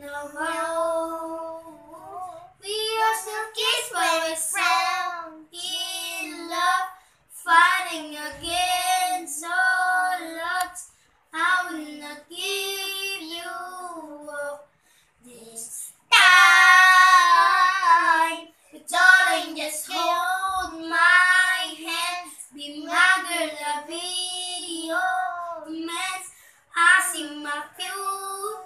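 A boy singing a slow pop love ballad solo and unaccompanied, in phrases separated by short pauses, with a long, loud held note about 16 seconds in.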